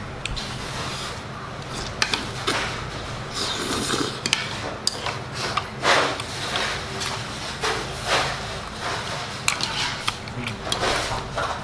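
Metal chopsticks clicking and scraping against a bowl as noodles are stirred and picked up, with short eating noises (slurps, chewing) between the clicks.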